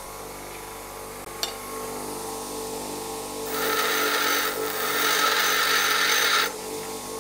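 Bench grinder running with a steady motor hum; from about three and a half seconds in, a high-speed steel lathe tool bit is pressed against the grinding wheel for about three seconds, giving a loud hissing grind, then lifted off.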